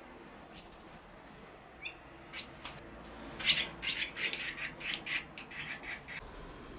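Barn swallow twittering: a few single high chirps, then a quick run of scratchy chattering notes lasting about three seconds.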